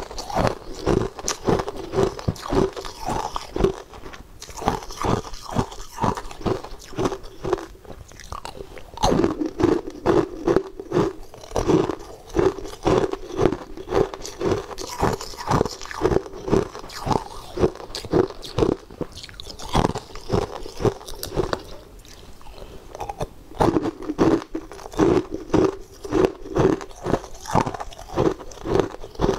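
Frozen coloured ice being bitten and chewed: runs of rapid, crisp crunches with a few short pauses.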